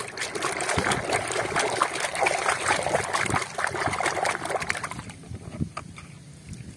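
Water splashing and sloshing in a tub as a hand scrubs a muddy toy under the surface. It is busy for about five seconds, then dies down to gentle lapping.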